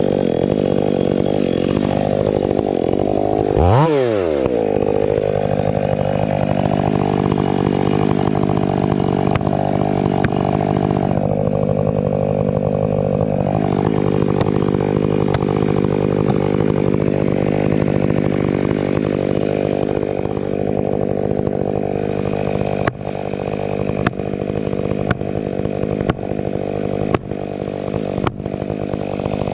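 Ported Stihl MS 500i fuel-injected two-stroke chainsaw running at high revs while cutting a Douglas fir. Its pitch sweeps up sharply about four seconds in, then sags and recovers as it loads in the cut. A series of sharp clicks comes near the end.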